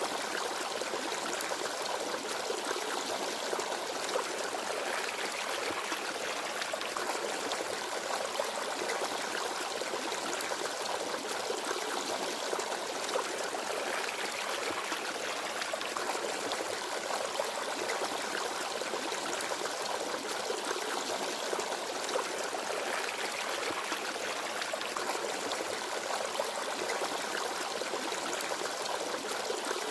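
Forest stream babbling and trickling over stones, a steady rush of water with no birdsong.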